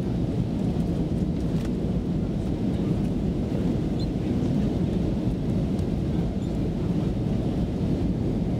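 Steady low rumble inside an Airbus A320's cabin in flight: engine and airflow noise with no change in level.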